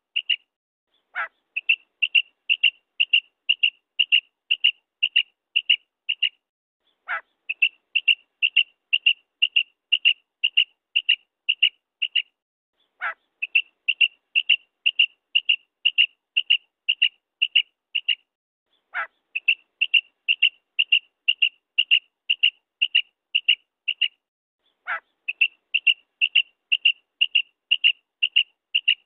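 Female common quail call ('krik'): one low falling note followed by a quick run of about a dozen short high notes, about three a second. The phrase repeats identically about every six seconds, five times, as a looped recording played to lure male quail when hunting.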